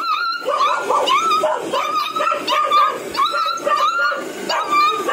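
A young puppy crying in a rapid string of short, high-pitched whines and yelps, many rising in pitch at the start, as it is held and turned over.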